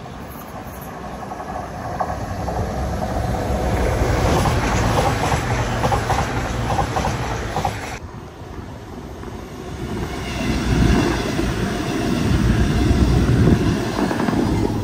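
A train running past on the line, swelling up as it nears; the sound cuts off abruptly about halfway through and a second train passage builds up through the latter half.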